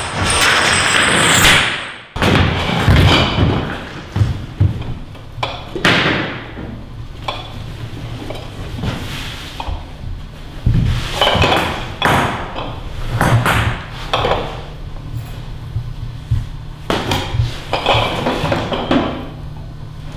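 Irregular thuds, knocks and scrapes of a performer moving on a stage floor and handling props, over a low steady hum.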